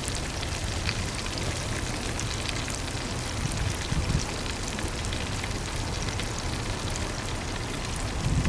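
Oil frying with a steady crackle of many fine pops: fish being deep-fried as karaage.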